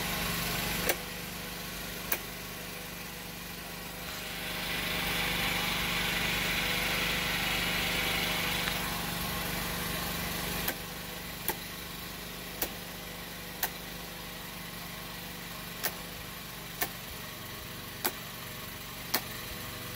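Rocker switches on a generator transfer switch snapping over one at a time, about ten sharp clicks in all, as the house circuits are moved off generator power one by one. Under them a Champion inverter generator runs steadily; its low hum drops about halfway through. A hiss rises for a few seconds in the middle.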